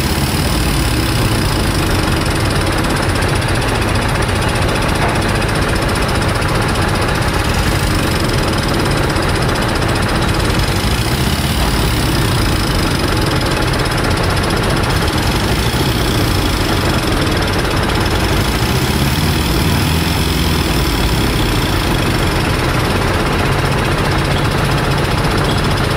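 A heavy vehicle engine running steadily, an even low rumble.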